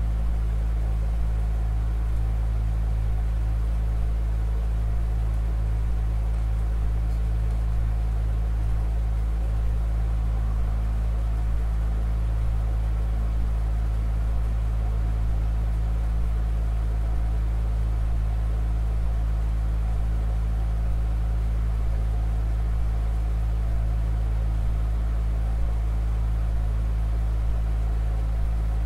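A loud, steady low drone made of several held low tones, with a faint hiss above it, unchanging throughout.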